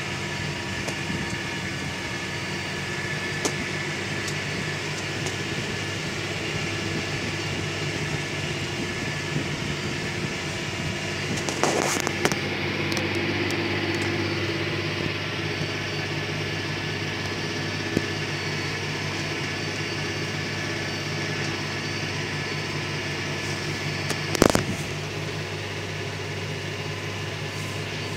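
John Deere 6150R tractor's diesel engine running steadily under load while ploughing. A brief clatter about halfway through and a single sharp knock near the end.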